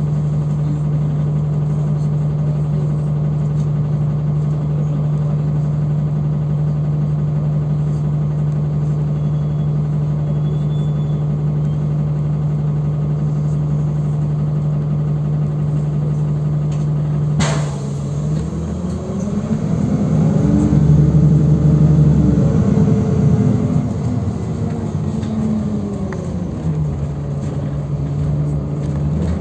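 City bus engine heard from inside the bus: a steady hum at first, then, after a sharp click about two-thirds in, the engine note climbs and falls back over several seconds before it settles into the steady hum again.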